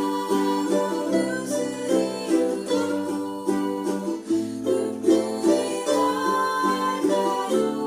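Ukulele ensemble playing a slow tune in strummed and plucked chords over a held bass line, the bass note changing every second or so.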